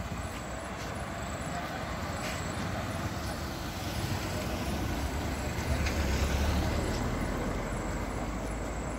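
A car passing close by on the road, its engine and tyre noise swelling to loudest about six seconds in, then fading.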